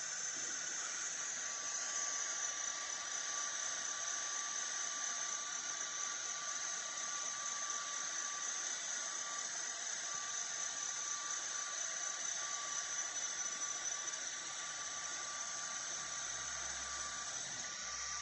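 Sculpfun S30 Pro diode laser engraver running during an engraving job: a steady rushing hiss of its air assist and cooling fan blowing through the nozzle, with a faint thin whine under it that drops out now and then.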